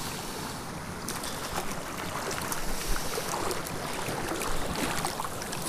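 Shallow mountain creek rushing steadily over rocks, with a few faint ticks mixed in.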